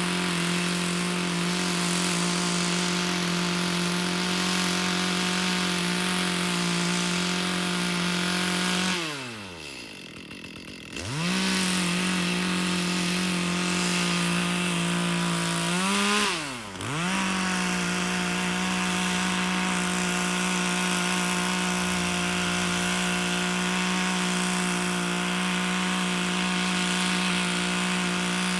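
Chainsaw running at high speed and cutting through a log. About nine seconds in the throttle is let off and the engine note falls away, then it is opened up again two seconds later; near the middle there is a second brief drop in pitch before it returns to full speed.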